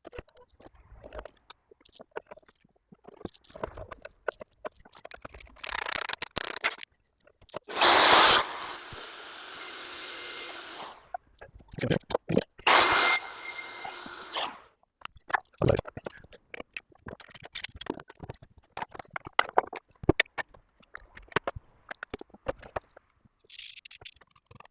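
Bosch GSB21-2 drill on a drill stand run briefly twice: a steady whirr, loudest as it starts, the first run about three seconds long and the second about two. Scattered scraping and clicking of handling comes in between.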